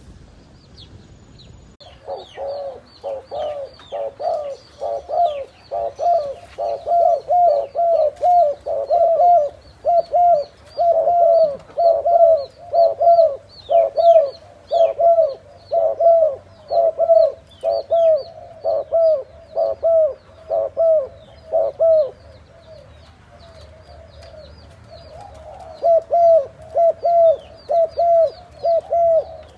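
Spotted doves cooing in a rapid run of short, rounded notes, about two or three a second. The cooing starts about two seconds in and pauses for a few seconds before the last stretch.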